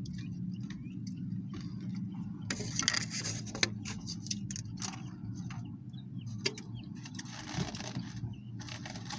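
Close-up eating sounds: a taco being bitten and chewed, with irregular crackles and the crinkle of its paper wrapper, over a steady low hum.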